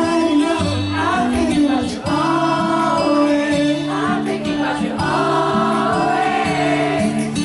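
Live concert music: a band playing a slow R&B song, with a stepping bass line under a sung melody.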